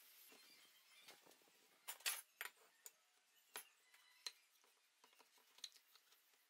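Faint, scattered clicks and light knocks of wooden blocks being handled and fitted together on a homemade wooden drill-press jig. The loudest is a pair of knocks about two seconds in. The drill motor does not run.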